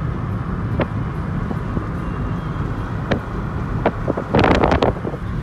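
Car driving, heard from inside the cabin: a steady low rumble of engine and road noise. A few faint clicks come through, and a short louder burst of noise comes about four and a half seconds in.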